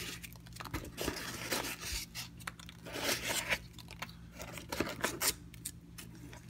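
Packing peanuts and cardboard rustling and scraping as a hand digs the peanuts out of a shipping box, in short, irregular scrapes and rustles.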